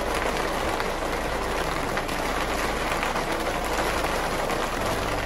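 Heavy rain tipping it down: a steady, dense patter of drops.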